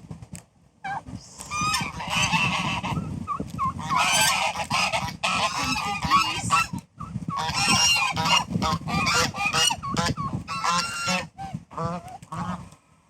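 Domestic geese honking over one another in a long, continuous racket of repeated calls, broken by a couple of brief pauses.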